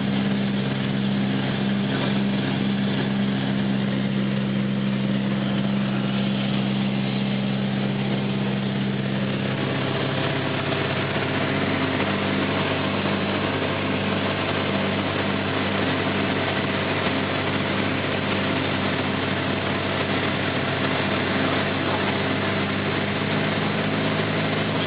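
Aircraft engine and propeller drone heard on board during a night landing approach, steady and loud. About ten seconds in, the even tone turns rougher and noisier, a change in the engine's sound.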